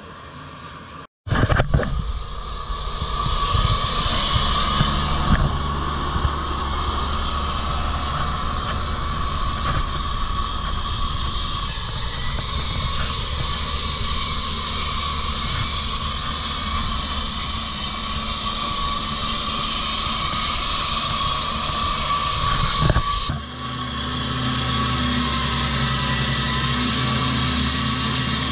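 Core Cut CC6566 walk-behind concrete saw running steadily as its water-fed diamond blade cuts asphalt: an engine drone with a steady high whine over it. The sound jumps from faint to loud about a second in and shifts in tone near the end.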